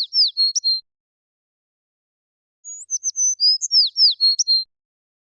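Sparrow singing: the end of a high phrase of whistled notes and quick downward slurs stops under a second in. After a gap of nearly two seconds the very same phrase comes again, lasting about two seconds.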